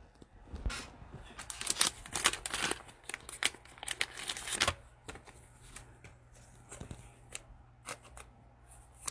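Plastic wrapper of a pack of basketball trading cards crinkling and tearing as it is opened, busiest in the first half. Then light scrapes and clicks as the cards slide against each other in the hands.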